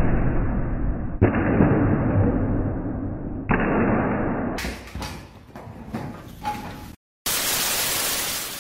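Kicks snapping wooden taekwondo breaking boards: sharp cracks about a second in and again near the middle, each followed by a fading rush of noise. Near the end, after a brief drop-out, comes a burst of even TV-static hiss.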